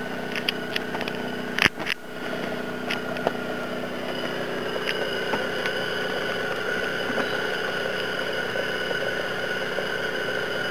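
Steady mechanical hum with several fixed tones, broken by a few light clicks in the first second and two sharp knocks close together just before two seconds in.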